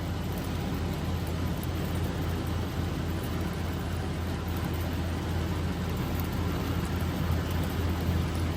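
Steady road and engine noise heard inside a moving vehicle on the highway, a constant low hum under an even rush of tyre noise.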